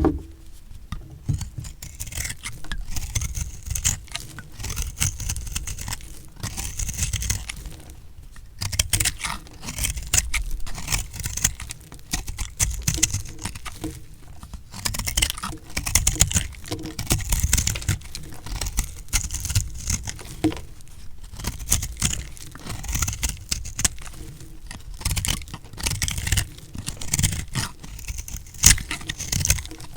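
A blade cutting through recycled soap: crisp crunching and scraping strokes following one another, with a few short pauses.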